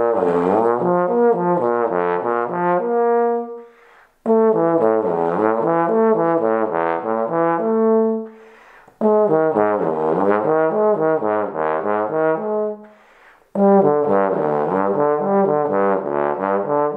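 Bass trombone played in four short phrases, each stepping down through a run of low notes and back up to a held note, with short breaks between them. It is a low-register exercise, played alternately with the notes bent by the lips and with the F-attachment valve.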